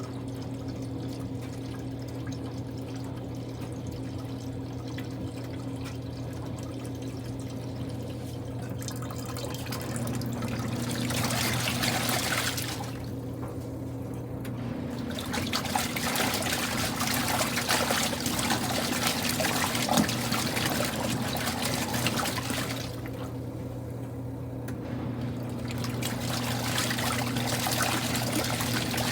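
Water pouring and splashing in a Kuppet portable washing machine during a rinse, over a steady motor hum. The water sound starts about a third of the way in and breaks off twice for a couple of seconds before coming back.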